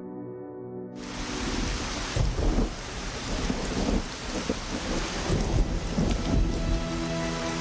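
Heavy rain sets in suddenly about a second in, with rolling rumbles of thunder through the middle; low music tones return near the end.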